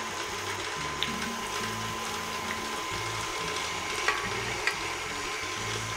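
KitchenAid Artisan stand mixer running steadily, its beater creaming butter in the steel bowl as eggs are added, with a thin steady whine over the motor sound. A few light clicks along the way.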